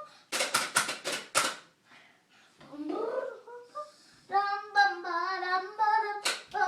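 A child's voice, unaccompanied: five quick noisy bursts in the first second and a half, a short gliding vocal sound about three seconds in, then wordless sung notes held fairly steady.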